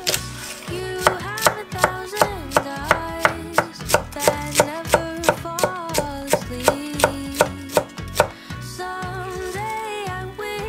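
Chef's knife shredding cabbage on an end-grain wooden cutting board: a quick, even run of chopping strokes, about three a second, starting about a second in and stopping about eight seconds in.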